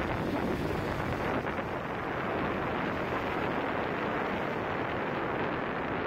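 Rough sea surf churning and breaking in foam, with strong wind buffeting the microphone in a steady rush of noise.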